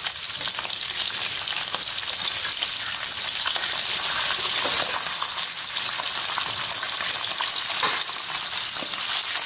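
Pre-cooked beef pieces frying in hot sesame oil: a steady sizzle, with a metal spoon stirring and scraping in the pan now and then.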